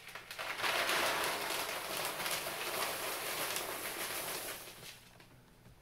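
Dry mushroom substrate of hardwood fuel pellets and soy hulls pouring from a plastic bowl into a plastic grow bag: a steady rattling hiss of many small pellets that starts about half a second in and tails off near five seconds.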